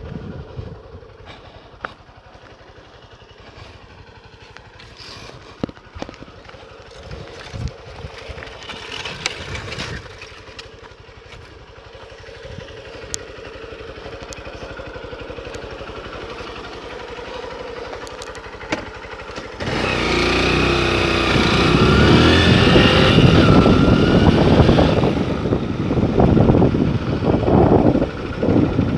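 Honda Bros motorcycle's single-cylinder engine running at a low, even idle with scattered clicks. About twenty seconds in it turns suddenly much louder, its pitch wavering up and down, then eases off near the end.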